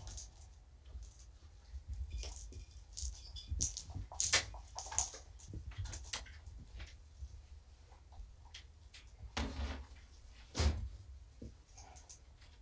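Scattered light clicks, rustles and jingling from kittens batting at cat toys and a person moving about the room, with two louder knocks past the middle.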